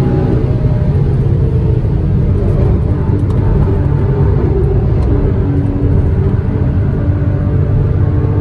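Porsche Cayman S 981's 3.4-litre flat-six engine running at speed on track, a loud steady drone whose pitch shifts slightly as the revs change.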